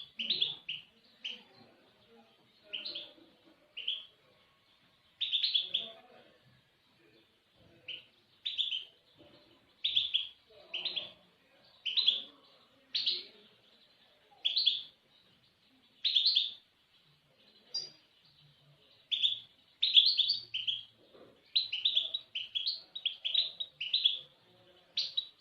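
A small songbird chirping: short high call notes, single or in quick runs of two to four, every second or two.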